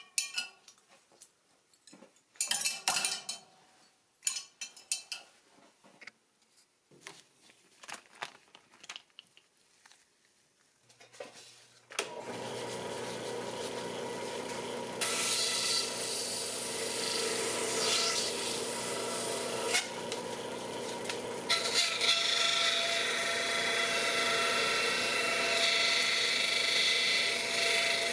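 Scattered light clinks and taps of glass and small parts. About twelve seconds in a drill press motor starts and runs with a steady hum. A few seconds later sandpaper is pressed against a toy tire spinning in the chuck, giving a loud scratchy rasping that eases briefly and then carries on.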